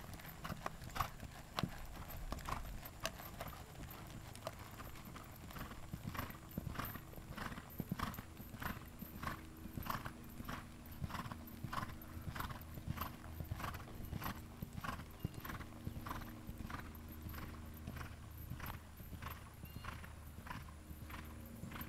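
Gypsy horse's hooves striking sand footing in a steady rhythm, about two to three beats a second, as the horse is ridden around the arena at trot and canter.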